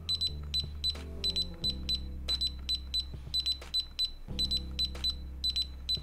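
DSC alarm keypad beeping with each key press, a string of short high beeps, some in quick runs, as programming codes are keyed in. Background music with steady low chords plays underneath.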